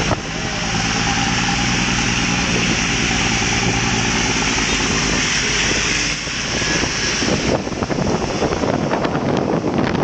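Car engines running and a steady hiss of tyres on a rain-wet street, heard from the open bed of a pickup truck. From about seven and a half seconds in, wind starts buffeting the microphone in gusts as the truck gathers speed.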